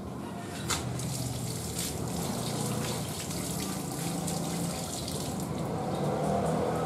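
Steady running water, like a tap running into a sink, with a couple of light clicks in the first two seconds.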